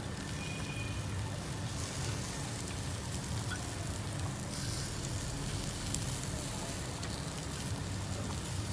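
Catfish pieces sizzling steadily on a wire grill rack over a charcoal fire, with a few faint clicks.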